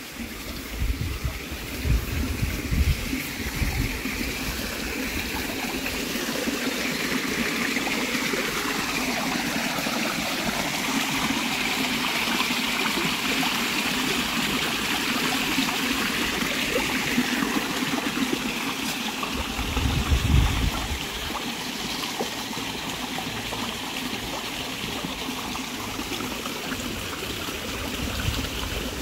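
Steady rush of running water, like a stream or fountain, with a brief low rumble about twenty seconds in.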